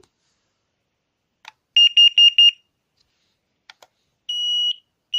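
Carbon monoxide alarm's sounder beeping at a single high pitch: four quick beeps about two seconds in, then the first of a run of longer beeps near the end. A couple of faint clicks come before each group.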